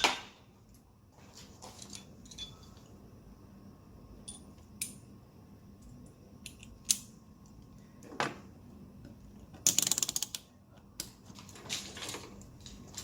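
Metal hand tools clicking and clinking as pieces of a socket set are swapped and fitted, with a short run of rapid ratchet-wrench clicks about ten seconds in, the loudest part.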